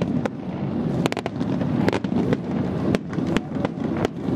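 Fireworks going off: an irregular run of sharp bangs and crackles, a dozen or so over a few seconds, with a steady low rumble underneath.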